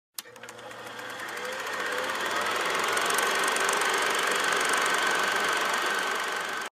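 Film projector sound effect: a click, then a rapid mechanical clatter with a steady whine that builds over about two seconds, runs evenly, and cuts off abruptly near the end.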